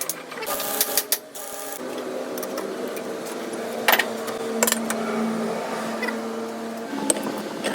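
A workshop machine running with a steady hum, with several sharp metallic clicks and knocks near the start and around the middle.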